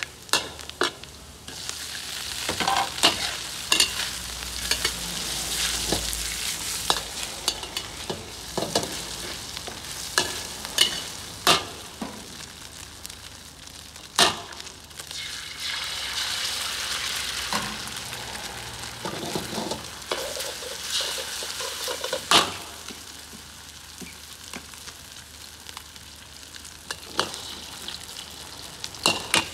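Flaked mackerel and eggs sizzling in a hot steel wok, stirred and scraped with a metal spatula, with sharp clanks of the spatula against the wok every few seconds.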